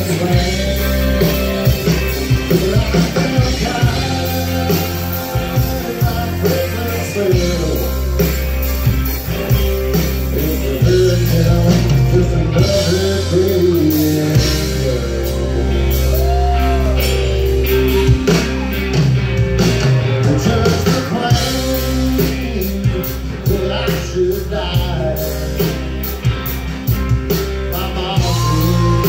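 Live country band music: drums, bass and guitars playing the song, loud and steady.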